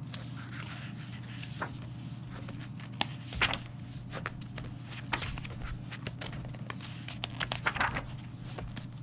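Pages of a thick softcover book being turned and smoothed flat by hand. A few short papery rustles and flaps come through, the loudest about three and a half seconds in and a cluster around seven to eight seconds in, over a low steady hum.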